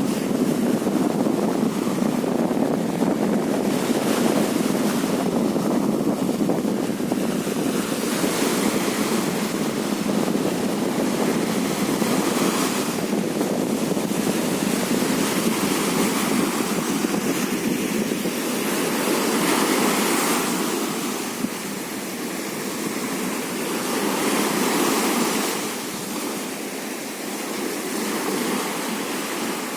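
Sea surf on a sandy beach: a continuous wash of waves, with a breaking wave's hiss swelling every few seconds.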